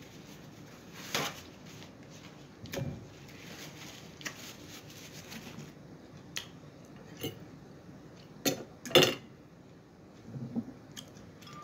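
Cutlery clinking and scraping against a plate during a meal: scattered short knocks, the loudest a quick cluster about nine seconds in.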